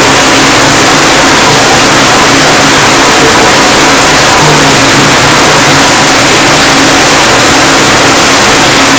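High-pressure shower head running, its spray making a loud, steady hiss of water.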